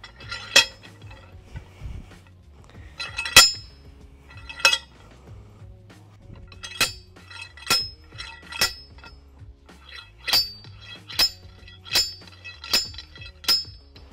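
Welding-umbrella slam pole being driven into the ground: its sliding weight slams down on the steel shaft about eleven times, each strike a sharp metal clank that rings briefly. A few scattered strikes at first, the loudest a little over three seconds in, then a steady rhythm of a little under one strike a second through the second half.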